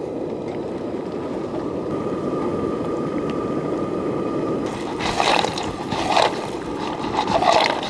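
Clams boiling in white wine in a wok over a high gas flame: a steady bubbling hiss. From about five seconds in come several louder bursts as the wok is lifted and moved on the burner.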